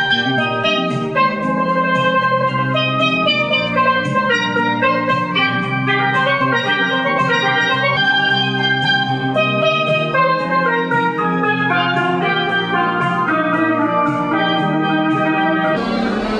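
Steelpan played with sticks: a quick, continuous run of ringing struck notes. Near the end the music cuts off abruptly to a noisy wash of sound.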